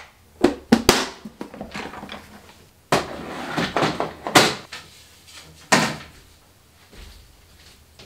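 Clear plastic storage box and the wooden knobs inside it being handled and pushed onto a wooden cabinet shelf: a few light clicks in the first second, then scraping and sharp knocks about three, four and a half and six seconds in.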